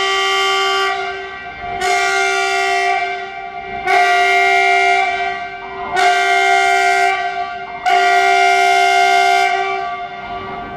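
Electric multiple unit's horn sounding a long blast again and again, about every two seconds, in a loud repeated series of Rp1 signals that came from an onboard system failure needing a computer reset.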